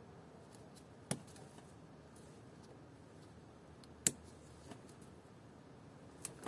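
Hands working on a wiring loom make small clicks. There are two sharper clicks, about a second in and about four seconds in, against a quiet background hum.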